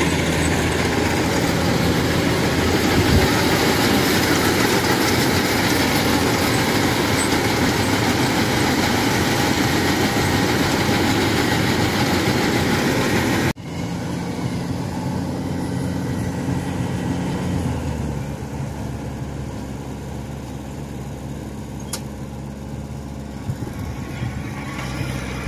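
A 105-model tracked rice combine harvester running close by, its engine and threshing machinery making a loud, steady noise. About halfway through, the sound cuts abruptly and the harvester is heard further off, as a quieter, steady engine hum.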